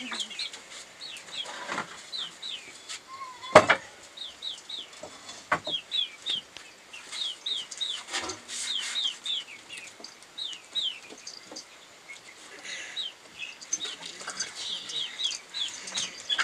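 Chickens' chicks peeping: a steady run of short, high, downward-sliding peeps. A few sharp knocks come through it, the loudest about three and a half seconds in.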